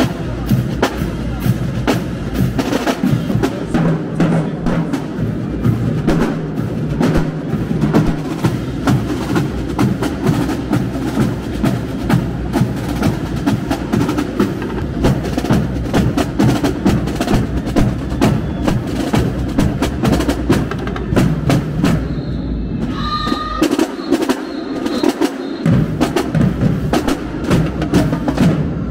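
Marching band drumline playing a cadence: rapid, steady snare and bass drum strokes with clicking rim and stick hits. Near the end the bass drums drop out for a couple of seconds, then come back in.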